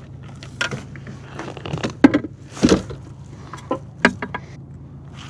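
A run of irregular short clicks, knocks and rattles: gear and a fish being handled aboard a kayak.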